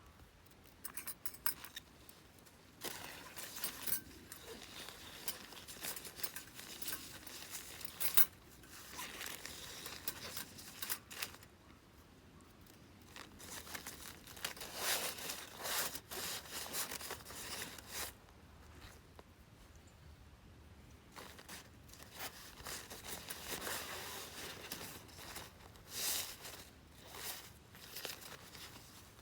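Irregular bursts of crinkling, rustling and scraping from material being handled, with a few sharper clicks.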